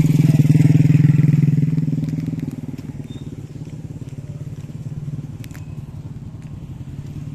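Small motorcycle engine running with a rapid, even pulsing. It is loud for the first two seconds, then fades to a lower steady level for the rest.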